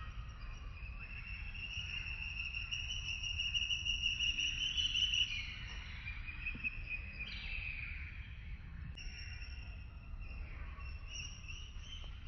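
Forest ambience: a continuous high chirring of insects and bird calls, loudest around the middle, over a steady low rumble.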